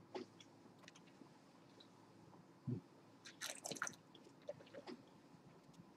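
Faint wet mouth sounds of a sip of rosé wine being swished around the mouth as a tasting rinse: a soft low thump, then a cluster of squishy sucking clicks about three and a half seconds in, with a few smaller ones after.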